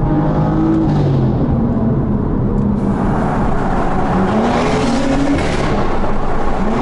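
BMW M2's exhaust as the car accelerates, engine pitch climbing several times and dropping in between, as when shifting up through the gears.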